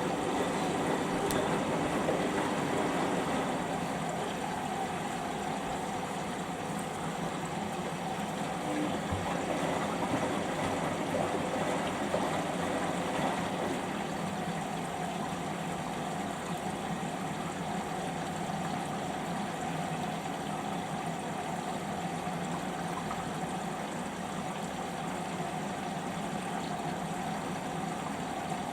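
Samsung EcoBubble washing machine on its rinse cycle, water running steadily into the drum with a constant rushing sound.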